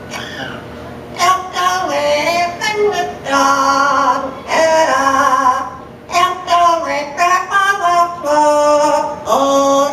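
Yellow-naped Amazon parrot singing a tune in mimicry of a human voice: a run of pitched notes, some held about a second, with short breaks between phrases.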